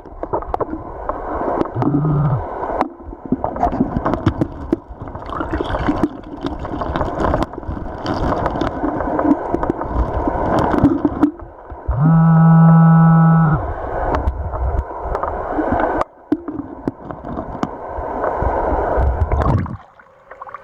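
Digging and sloshing through gravel and shallow creek water, with scrapes and knocks throughout. A metal detector sounds a steady target tone for about a second and a half past the middle, and a brief lower tone about two seconds in.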